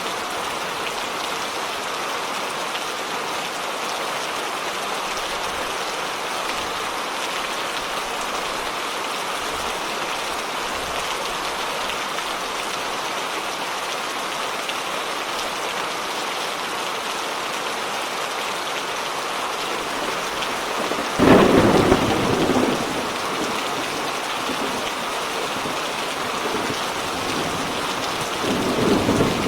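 Steady rain hiss of a thunderstorm. About 21 seconds in, a sudden loud thunderclap rumbles away over a second or two, and another rumble of thunder builds near the end.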